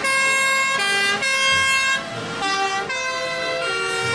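Fire trucks' two-tone sirens sounding in a convoy, the pitch jumping back and forth about every half second, with more than one siren overlapping.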